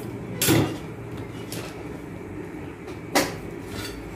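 Two sharp knocks of kitchen things being handled, about half a second in and again about three seconds in, the first the louder, over a steady low hum.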